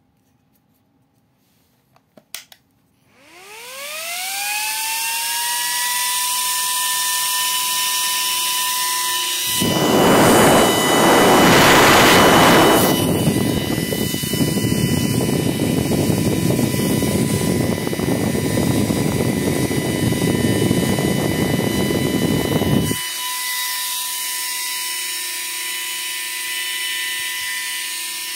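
AVC DFTA0456B2U 12 V ball-bearing fan switched on with a couple of clicks, spinning up with a rising whine that settles into a steady high whine. From about ten seconds in, loud rushing air noise covers the whine, peaking around twelve seconds. It drops away suddenly near twenty-three seconds and the steady whine carries on.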